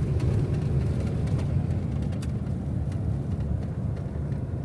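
Steady low rumble of a motor vehicle on the move, with a few faint clicks.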